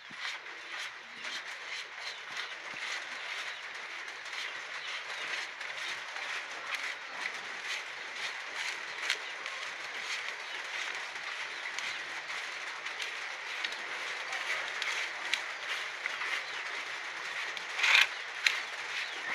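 A hand rubbing and mixing damp chick feed and bran in a plastic tray: a steady granular rustling with many small crackles, and a louder scrape near the end.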